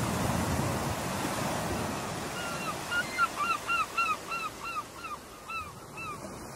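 Ocean surf washing steadily, while a bird calls a quick run of about a dozen short, arched notes, roughly three a second, starting about two and a half seconds in and fading out near the end.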